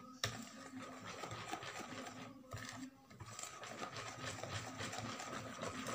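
Hand whisk beating thick cake batter in a plastic bowl: quick, even strokes that pause briefly about two and a half seconds in.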